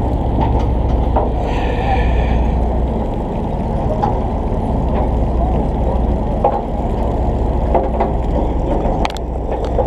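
Steady, muffled low rumble aboard an offshore fishing boat, with scattered light clicks and a brief high tone about two seconds in.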